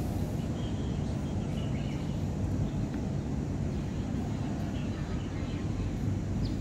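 Steady low rumble of outdoor urban background noise, with a few faint high chirps.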